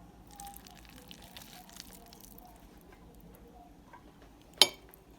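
Faint handling sounds as leftover spaghetti is scooped out, then a single sharp, loud clink of a serving utensil striking a dish about four and a half seconds in.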